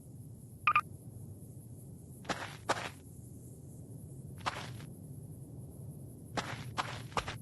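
A pet's laboured breathing, the sign of its breathing problem: a short high-pitched squeak about a second in, then six short, noisy puffs of breath at uneven intervals.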